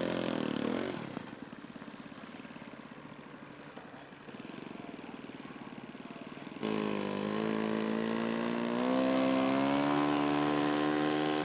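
Radio-controlled scale model airplane engine running in flight. It is fainter after the first second, then much louder and steady from about two-thirds of the way through, where the pitch rises slightly.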